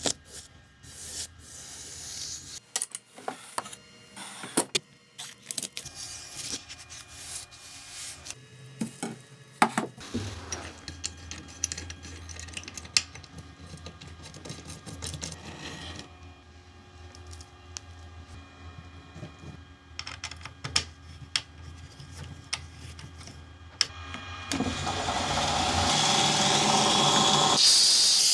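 Small metal clicks and clinks as aluminium jig parts and screws are handled and tightened, over a low steady hum. Near the end a belt grinder starts up, its hiss swelling and growing louder.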